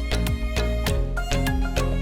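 Background music with a steady beat, about three drum strikes a second over pitched instruments.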